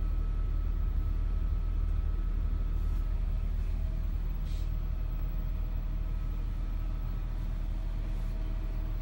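Diesel pusher motorhome's rear-mounted diesel engine idling steadily, heard from inside the front cab as a low, even rumble.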